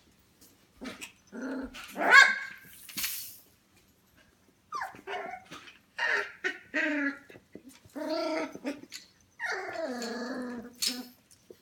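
Young F1 goldendoodle puppies, about 25 days old, vocalizing in a string of short pitched calls, with one longer drawn-out call in the second half.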